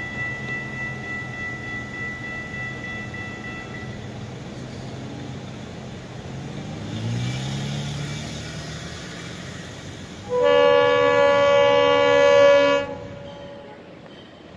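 Florida East Coast Railway diesel freight locomotive approaching, its low engine note rising in pitch about seven seconds in. Its air horn then sounds one long blast of about two and a half seconds, the loudest sound, cutting off sharply into the rumble of the train.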